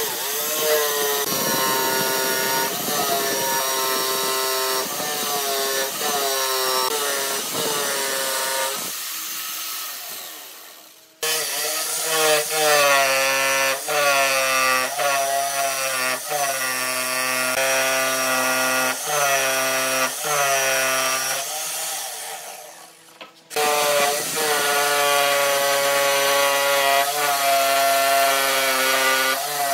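Makita jigsaw cutting wood, its motor whine dipping in pitch under load and recovering again and again. It winds down and stops for a couple of seconds about a third of the way in, starts again, and pauses once more for about a second near three quarters of the way through.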